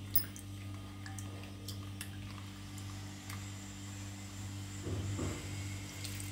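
Soft wet squelching of a hand squeezing soaked tamarind pulp in water, a short burst about five seconds in, over a steady low electrical hum.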